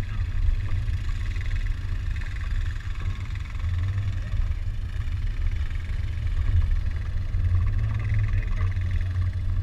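Land Rover Discovery 2 running at low speed on a rough dirt trail: a steady, deep engine and drivetrain rumble with little change in pitch.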